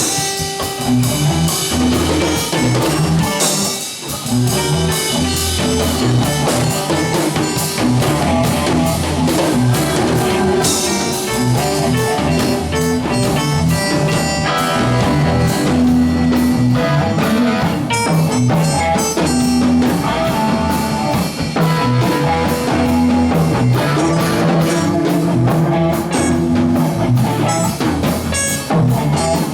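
A live band jamming: guitars and bass over a drum kit keeping a steady beat, the playing dropping out briefly about four seconds in.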